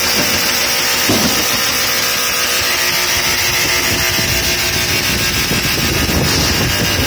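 Resistance seam welding machine working a drum barrel seam: a steady loud mechanical hum with many held tones and a high hiss. A low rumble grows over the last couple of seconds.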